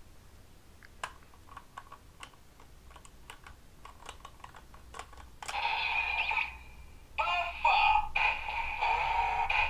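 Bandai DX Beast Driver toy belt: a few faint clicks as the Buffalo Ring is set in it, then about halfway in the belt's electronic voice and music play loudly, with a short break before they carry on.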